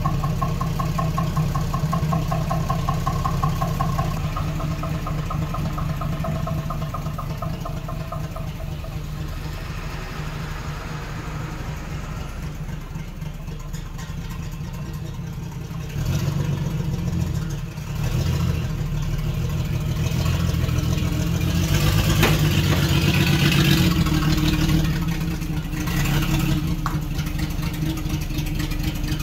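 1976 AMC Gremlin's engine running as the car drives off and then returns. It fades as the car moves away, then grows louder from about halfway through and is loudest near the end as the car pulls up close.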